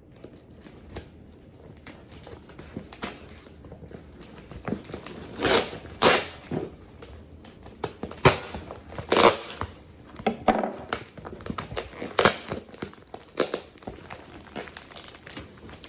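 Plastic mail packaging crinkling and tearing as a package is opened and handled, in a run of irregular rustles and sharp rips, loudest through the middle.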